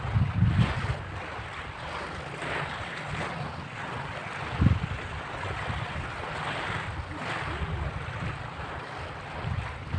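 Small waves washing onto a pebble beach, with wind rumbling on the microphone. A brief low thump about halfway through.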